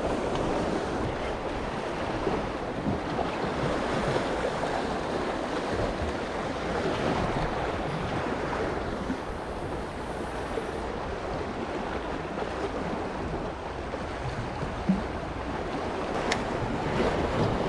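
Sea waves washing against the concrete tetrapods of a breakwater, with wind buffeting the microphone, steady throughout. A single brief knock about fifteen seconds in.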